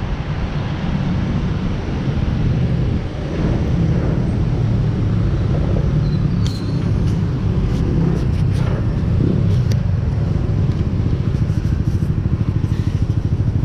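Motor scooter engines in city traffic, a steady low rumble, with a few short sharp clicks in the middle.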